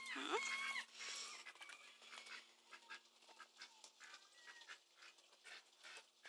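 A gull giving a few short, repeated cries in the first second. After that only faint scattered clicks over a faint steady low hum.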